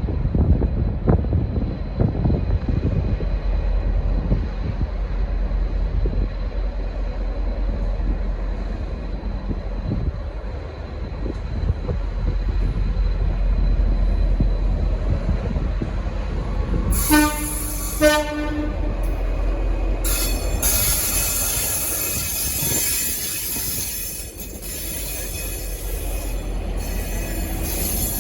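V/Line N class diesel locomotive rumbling low as it pulls away, then two short blasts on the low note of its horn about two-thirds of the way through. Soon after, high-pitched wheel squeal sets in as the train rolls out.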